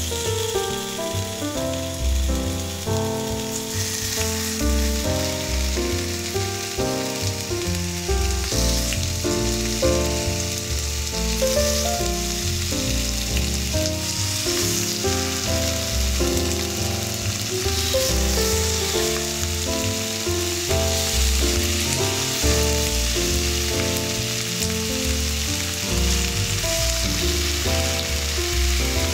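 Chicken thigh pieces sizzling in oil as they go into a hot frying pan of fried onion, the sizzle growing louder about four seconds in, under background music.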